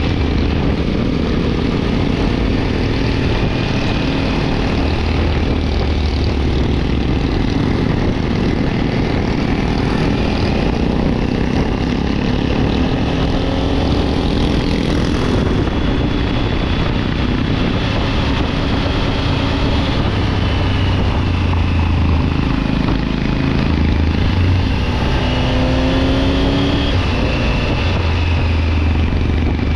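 A Triumph Tiger 900 GT Pro's three-cylinder engine running under way with road and wind noise. Its pitch shifts with the throttle and climbs a few seconds before the end.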